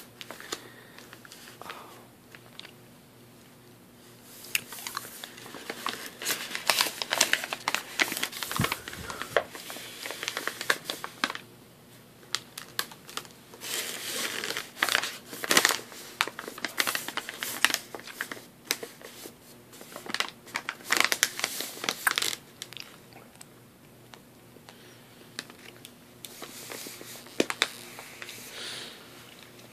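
Crinkling plastic cough-drop packaging being handled, in irregular crackly bursts through the middle stretch and again near the end.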